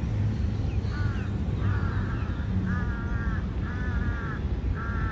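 A bird calling outdoors, five short pitched calls of about half a second each, one after another starting about a second in, over a steady low background rumble.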